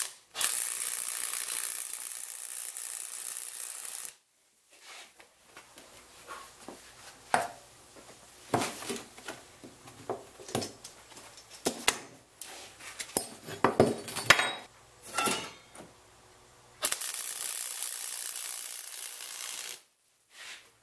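Stick welder arc crackling and hissing steadily for about four seconds as a steel tube joint is welded, then irregular metallic taps and scrapes, then the arc hissing again for about three seconds near the end.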